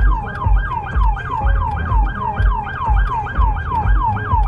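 Police car siren in a fast yelp: a rapid rising-and-falling wail repeating about four times a second, with a low pulsing thump about twice a second underneath.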